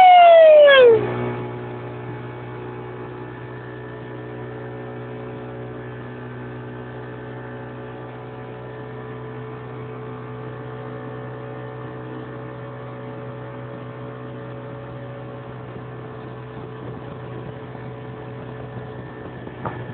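A loud pitched tone falling in pitch cuts off about a second in. It leaves a steady low hum with several even tones, which runs unchanged.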